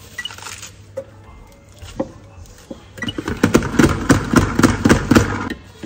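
Plastic salad spinner spinning wet salad greens dry: a fast, dense rattling clatter that starts about three seconds in and lasts about two and a half seconds. Before it there are a few single plastic clicks and knocks as the spinner is handled.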